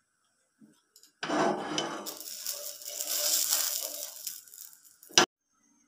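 Steel spatula scraping and sliding across an oiled non-stick frying pan as a fried pitha is worked loose and pushed aside, in an uneven rasp lasting about four seconds. A single sharp tap of metal on the pan comes near the end.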